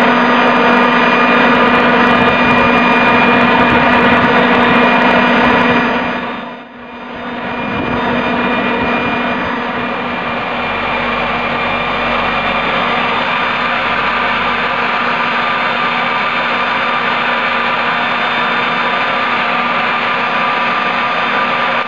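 Homemade turbojet built from a turbocharger running on its first run-up: a steady roar with a high turbine whine and several other steady tones. The sound drops away briefly about seven seconds in and comes back a little quieter.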